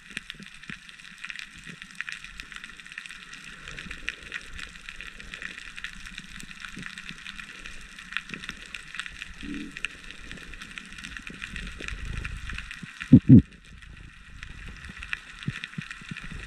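Underwater ambience over a rocky reef: a steady, dense crackle of tiny clicks. Underneath are soft low bumps and swishes of movement through the water, and a loud double thump about 13 seconds in.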